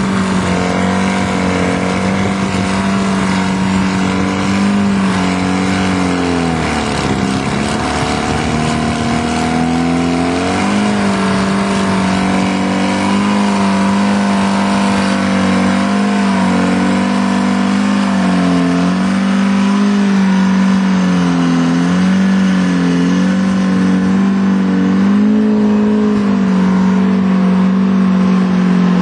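Heavy diesel engines working hard under load as a Wagner tractor with a Detroit Diesel pulls a scraper, helped by a push from a D-5 Caterpillar dozer. The engine pitch sags as the engine lugs down about six seconds in, climbs back about four seconds later, then rises and falls a little as the load changes.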